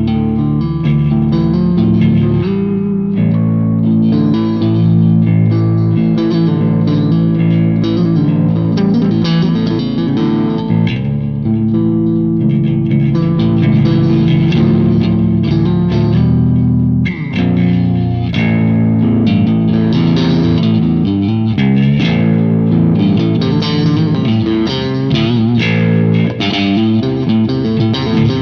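Ibanez Universe UV7P seven-string electric guitar played continuously through an amp, a run of notes and chords with low notes underneath, pausing very briefly about 17 seconds in.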